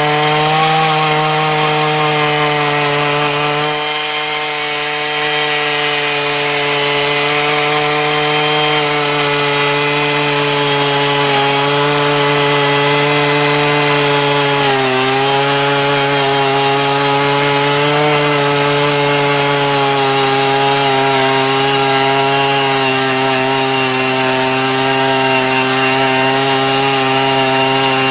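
Earthquake E43 one-man post-hole auger's 43cc two-stroke engine running steadily under load as its bit bores into the ground. The pitch sags briefly about halfway through as the bit bites harder.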